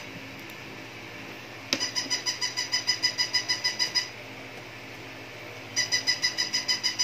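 Electronic puppy toy's sound chip, a rapid pulsing beep of about six pulses a second. It comes in two bursts of about two seconds each, and the first begins with a click.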